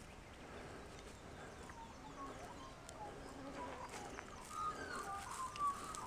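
Faint bird calls: short chirping notes that come more often from about four seconds in, over light ticks and rustles in dry leaf litter.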